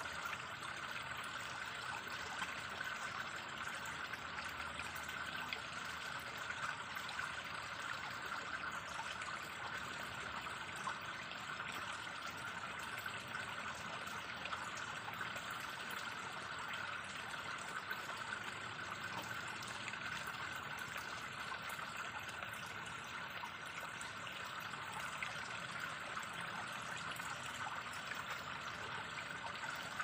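Shallow stream flowing over rocks, a steady trickle with many tiny splashes.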